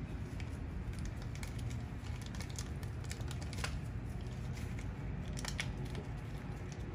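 Dry fallen leaves crackling and rustling underfoot in scattered light clicks, over a steady low rumble.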